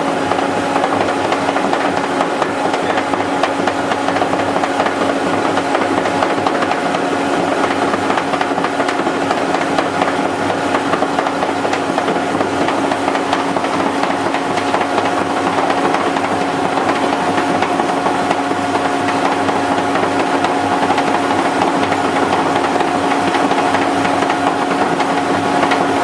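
Hydrogen compressor running steadily on hydrogen during a trial. It gives a constant hum under a dense, even mechanical rattle, with no change in speed or load.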